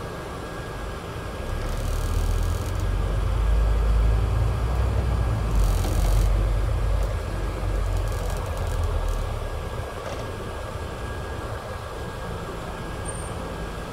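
Scania double-decker bus's diesel engine heard inside the upper deck, pulling away: the low engine rumble swells from about a second and a half in, holds strong for several seconds, then eases back to a steadier run, with a faint steady whine underneath.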